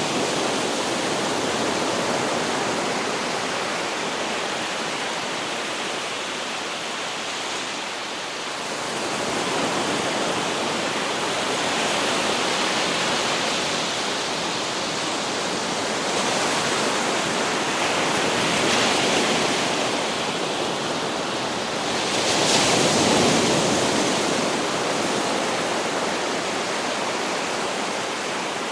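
Ocean surf breaking on a beach: a continuous rush of water that swells and falls back several times, the biggest wave surge late on.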